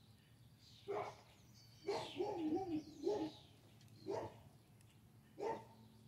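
A dog barking in short single barks about a second or so apart, with a longer run of wavering barks and yelps about two seconds in.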